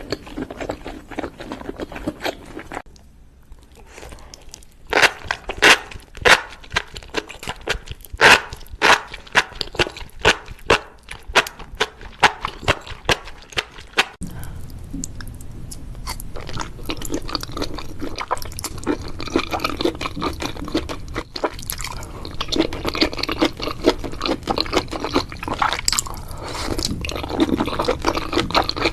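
Seafood being eaten: sharp crunching bites, several close together from about five to thirteen seconds in, then steadier wet chewing and mouth sounds for the rest of the stretch.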